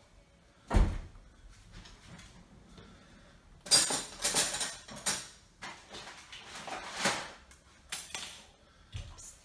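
A single low thump about a second in, then a spoon scraping and clinking against a bowl as thick caramel is scooped and dolloped out, followed by a few lighter clicks.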